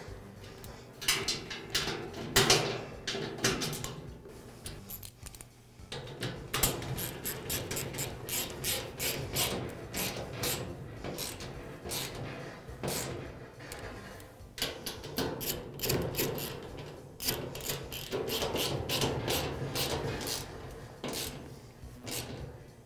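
Ratchet wrench clicking in quick runs, with short pauses between them, as bolts are driven in to secure a grill's sheet-metal bottom panel to its frame.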